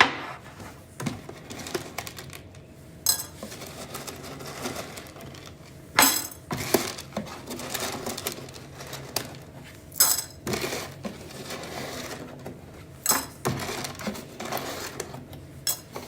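Scattered clinks and knocks, with scraping and rubbing in between, from hands handling a coffee grinder's parts and a container while clearing out stuck coffee grounds. The coffee jammed inside is what stopped the grinder working.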